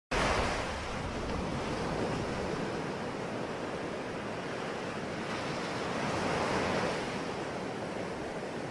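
Ocean waves breaking and washing on the shore in a steady wash, swelling and easing slowly, with a bigger swell near the end.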